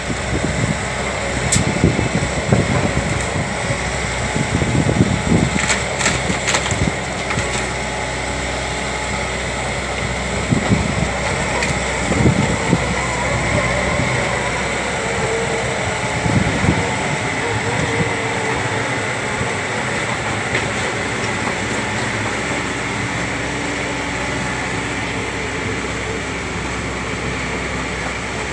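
Diesel engine of an Atlas machine carrying a hydraulic tree shear, running steadily while the shear works, with irregular heavy surges and a few sharp clicks during the first half, then steadier running.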